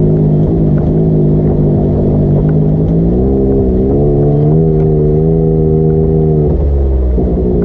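A vehicle's engine running under way, its pitch climbing about three seconds in, holding steady, then dropping near the end as the revs fall, over a low rumble.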